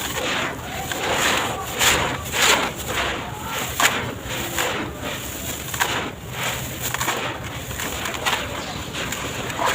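Dry sand-cement blocks being crushed and crumbled by hand in a tub: gritty crunching in irregular strokes, about two a second.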